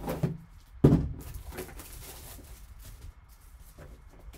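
Gloved hands sealing a cardboard card box with clear tape. A single sharp thump about a second in, then light crinkling and rustling of tape and box, with a few small clicks.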